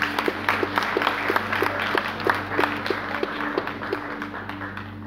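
Congregation applauding, one clap standing out about three times a second, over a keyboard holding sustained notes; the clapping thins out near the end.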